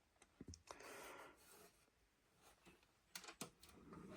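Near silence, with a few faint clicks and a soft rustle.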